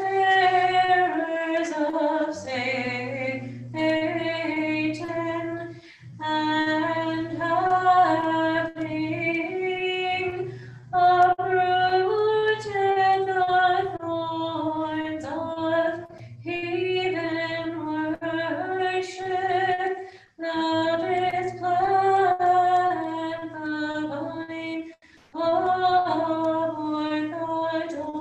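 Unaccompanied Orthodox liturgical chant: voices singing a Vespers hymn in phrases of a few seconds each, with short pauses for breath between them.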